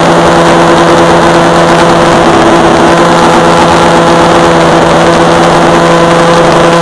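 Mikado Logo 600 SX electric RC helicopter in flight, heard from a camera mounted on the helicopter: a loud, steady drone of motor, drive gears and rotor blades holding one constant pitch.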